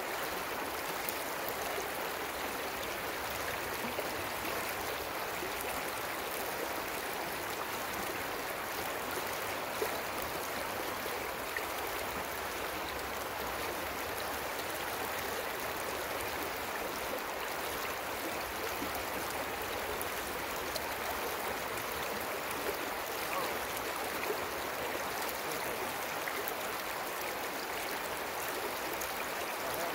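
Creek water flowing: a steady, even rush of running stream water, with a few faint ticks.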